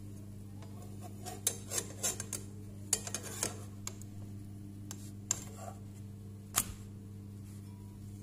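A frying pan and utensil knocking and clinking: a quick run of sharp clatters in the first half, then two single clicks later, over a steady low hum.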